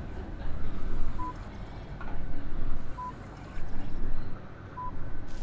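Hemodialysis machine with its peristaltic blood pump turning, giving a short high beep three times, about two seconds apart, over a low uneven rumble.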